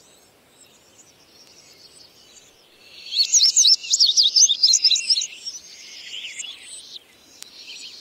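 Male indigo bunting singing: after a few faint high chirps, one loud, quick phrase of sharp, high, sliding notes starts about three seconds in and lasts about two seconds, then fainter high song follows.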